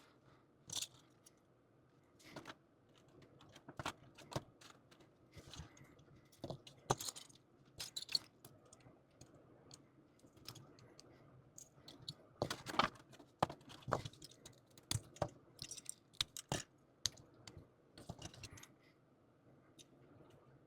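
Small plastic snap-together model-kit figures clicking and clattering as they are handled and their parts are pushed and snapped together. The clicks come irregularly, bunching up about a third of the way in and again past the middle.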